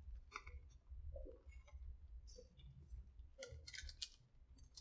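Faint chewing of a mouthful of sub sandwich with crispy onion strings: soft crunches and wet mouth clicks, a cluster of them about three and a half seconds in.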